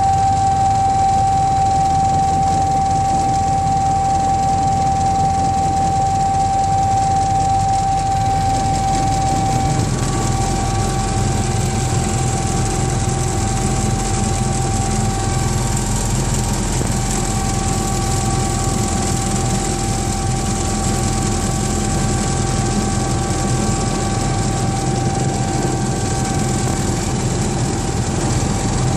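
Sikorsky S-76 helicopter heard from inside the cockpit: a steady high whine over a constant low drone from the engines and rotors, on approach to an offshore rig's helideck. A little after ten seconds in, the loudest whining tone fades and a slightly higher one comes up.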